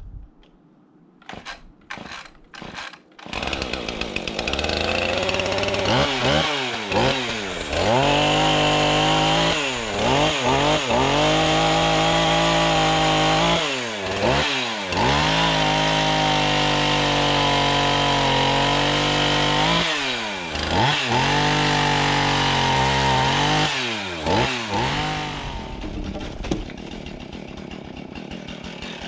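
A few sharp knocks, then a two-stroke chainsaw starts and runs loud, its revs repeatedly sagging and climbing back as it cuts firewood under load. The engine stops about 25 seconds in.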